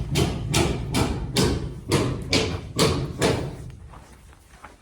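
Footsteps of a person walking at a steady pace, about two steps a second, fading out about three and a half seconds in.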